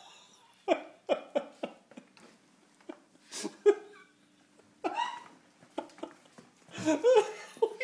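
A Cavalier King Charles Spaniel puppy making short, sharp vocal sounds, four in quick succession about a second in, then a few more scattered ones.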